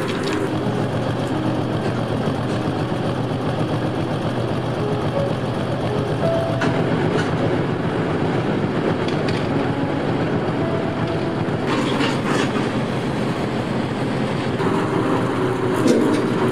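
Freight train of loaded flatcars rolling: a steady rail rumble with a few brief squeaks and sharp clicks from wheels and couplings.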